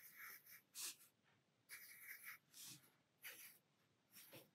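Pencil scratching on watercolour paper in a series of short, faint strokes as small leaves are sketched in.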